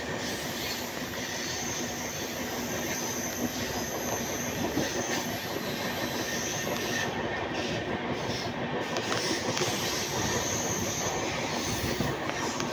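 Passenger train running steadily along the track, heard from beside one of its own coaches: wheels on rails.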